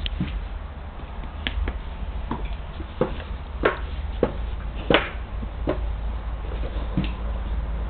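Irregular sharp clicks and taps close to the microphone, about a dozen, the loudest about five seconds in, over a low steady hum.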